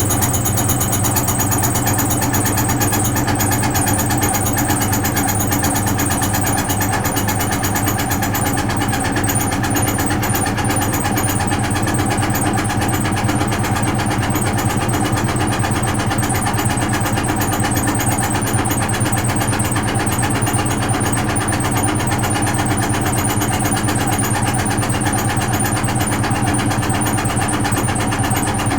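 Vintage Frigidaire Super Deluxe Automatic 50 front-loading washing machine running steadily through its cycle, its motor giving an even hum and whir.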